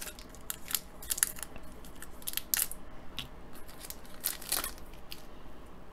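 Shiny wrapper of a hockey card pack crinkling and rustling in short irregular spells as it is opened and the cards are slid out.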